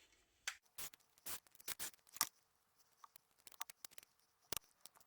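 Irregular light clicks and taps, about fifteen in five seconds, from a Siemens SL55 mobile phone's plastic housing and small parts being handled and taken apart with a small Torx screwdriver.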